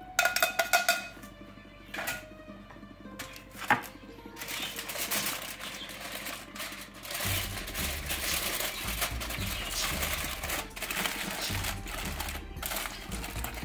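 Aluminium foil being folded over a baking tray and crimped shut by hand, crinkling and crackling continuously from about four seconds in. Before that, a few sharp metallic clinks of a spoon against a can. Background music with a bass line comes in about halfway.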